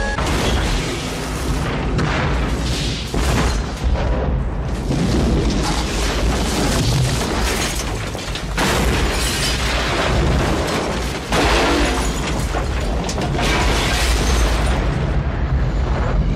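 Film explosion sound effects: a fireball blasting through a road tunnel, a long, loud rumble that surges sharply again several times. Dramatic music runs underneath.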